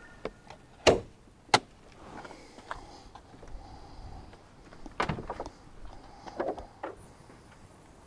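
Sharp clacks and knocks from a Jaguar XKR's bonnet catch and body panels. Two loud clacks come about a second in, half a second apart, then a cluster of knocks and clunks about five seconds in, as the bonnet is released and raised.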